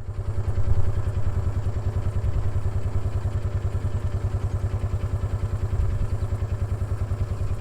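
An engine idling steadily, with an even, rapid low throb.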